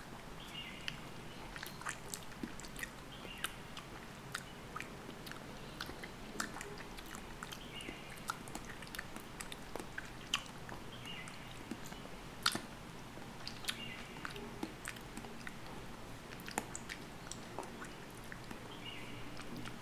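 Wet, sticky clicking and crackling of an orange's flesh and membrane being pulled apart by fingers, heard very close up: many small sharp clicks at irregular intervals, with a short higher squeak every two to three seconds.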